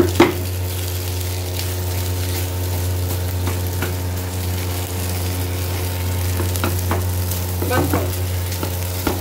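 A silicone spatula stirs and scrapes thick semolina halwa around a nonstick frying pan as it cooks, with scattered scrapes and knocks against the pan: a sharp one just after the start and a cluster near the end. A steady low hum runs underneath.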